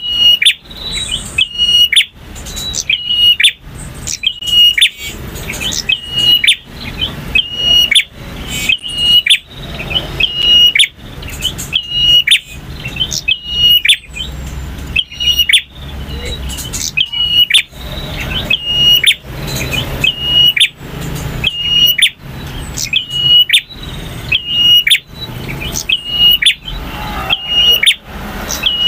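Male prinia (prenjak) singing loudly, repeating sharp, clipped phrases about once a second, each with a short high whistle.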